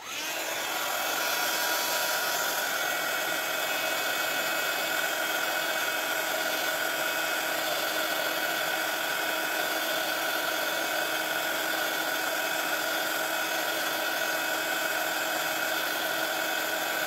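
Embossing heat gun switched on right at the start and running steadily, a fan hiss with a few steady whining tones, melting embossing powder on a stamped title.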